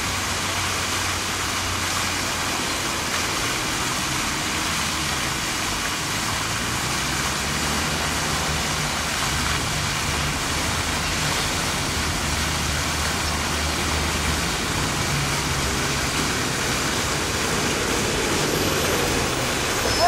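Park fountain with several vertical water jets falling back into its pool: a steady rush and splash of water.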